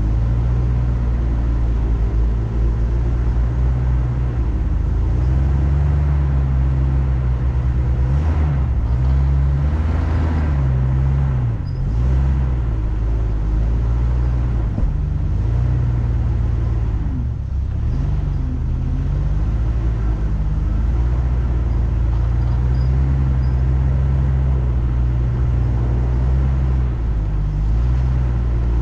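Off-road vehicle engine running at low revs while crawling a rough trail, its pitch dipping and rising again and again as the throttle changes.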